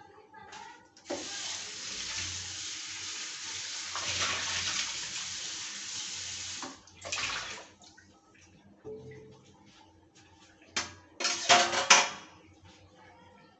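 Water running from a kitchen tap for about five and a half seconds, stopping abruptly, then a few loud clattering splashes about two seconds before the end.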